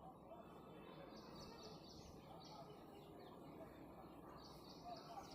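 Faint bird chirping: short runs of quick, evenly spaced high chirps, repeated three times, over a steady low background hiss.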